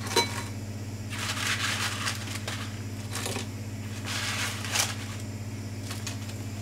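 Kitchen tongs setting crisp, sugar-coated churros into a ceramic bowl. There is a short clink of the tongs against the bowl just after the start, then several soft scraping, crinkling rustles as the churros rub together, over a steady low hum.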